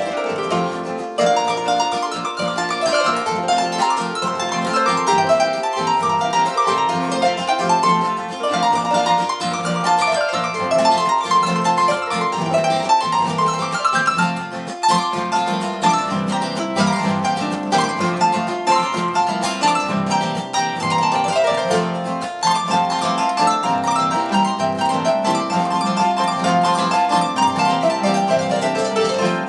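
Harp playing a piece: a continuous stream of plucked notes with many quick note onsets.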